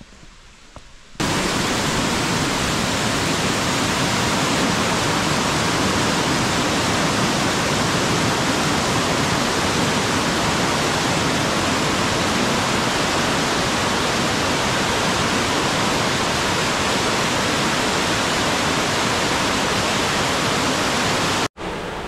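A mountain stream in heavy flow, pouring as white water over a steep rock slab: a loud, steady rush. It starts abruptly about a second in and cuts off just before the end.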